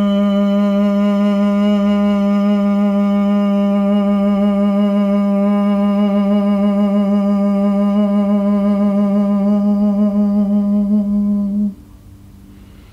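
Sound-bath vocal toning: a voice holding one long, steady low note rich in overtones, wavering slightly late on and stopping abruptly about a second before the end.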